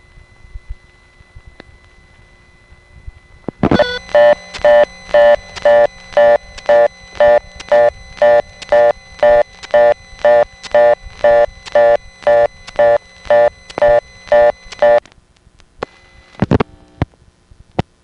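Telephone fast busy (reorder) signal from a crossbar 5 central office, pulsing on and off about twice a second for about eleven seconds before cutting off. It is the partial-dial timeout after only a single digit was dialed. Quiet line hiss with a click comes before it, and another click follows.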